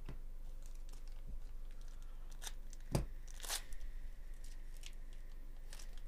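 Foil wrapper of a Bowman Chrome baseball card pack being torn open by hand, with crinkling and rustling and a thump on the table about three seconds in, then a longer tear. Cards are handled near the end.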